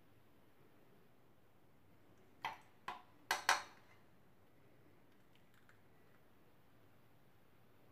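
A stainless saucepan and a small metal mesh strainer knocking together: four quick, sharp clinks in just over a second, about two and a half seconds in, the last two loudest. The rest is quiet room tone.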